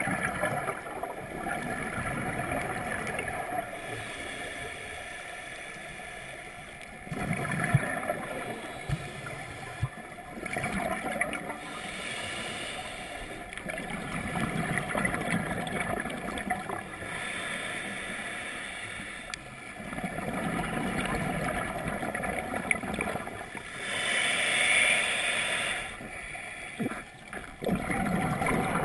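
Scuba regulator breathing heard underwater: rushes of exhaled bubbles gurgling, alternating with breaths, in uneven surges every few seconds, one with a brighter hiss about 24 seconds in.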